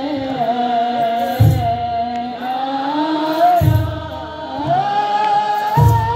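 Ethiopian Orthodox wereb: a choir of men chanting a hymn in unison to a slow, gliding melody, with a deep kebero drum stroke about every two seconds, three strokes in all.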